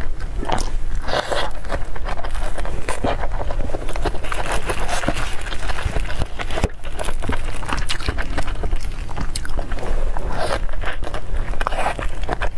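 Close-miked chewing and biting of a fresh Vietnamese spring roll in its rice-paper wrapper: a dense, irregular run of crunches and wet mouth clicks.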